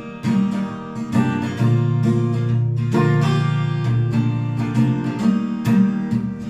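Acoustic guitar with a capo being strummed, chords ringing and changing every second or so.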